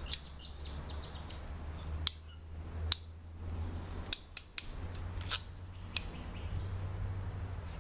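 Small hand-held hydraulic cable crimper being worked on a wire terminal: a series of sharp metallic clicks from the tool, irregularly spaced, several close together in the middle.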